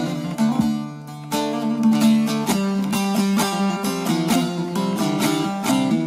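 Background music: an instrumental passage of plucked string instruments playing a run of quick notes, with a brief dip about a second in.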